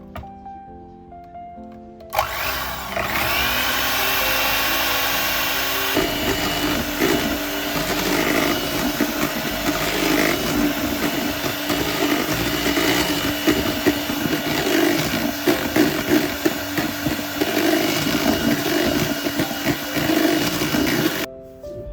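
Electric kitchen mixer running steadily, starting about two seconds in. Its tone changes around six seconds in, and it cuts off just before the end. Quiet background music plays before it starts and after it stops.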